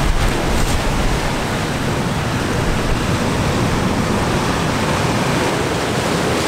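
Steady, loud roar of breaking ocean surf, with wind buffeting the microphone.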